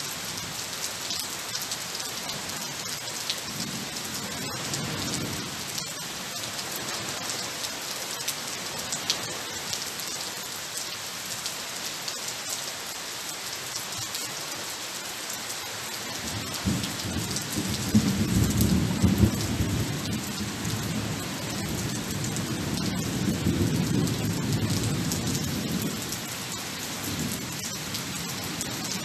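Steady rain falling, with a long roll of thunder rumbling in a little past halfway and dying away over about ten seconds.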